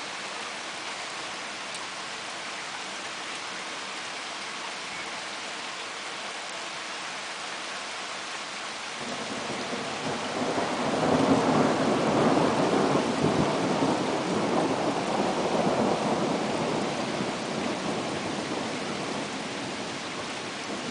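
Steady rain hiss, then about nine seconds in a long roll of thunder builds, rumbles for several seconds and slowly fades away near the end.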